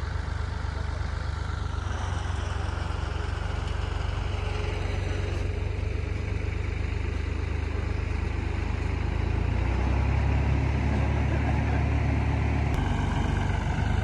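Tractor engine running steadily while it works a front-mounted wheat reaper, growing louder about ten seconds in.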